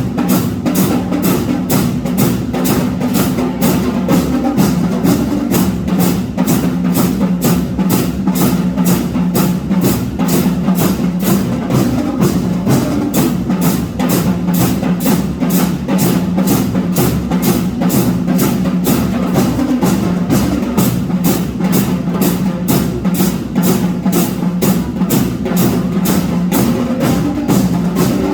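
Marching band playing, its drums and percussion striking a steady march beat of a little over two strokes a second over a held low tone.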